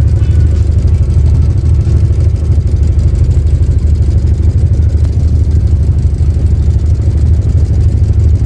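Hire boat's engine running steadily, a loud, even low rumble.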